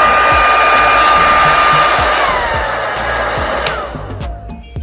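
Red by Kiss Handle-less 2200 blow dryer running with a steady whine over a loud rush of air, a little loud. About two seconds in it is switched off: the motor's whine falls in pitch as it winds down, and a click follows.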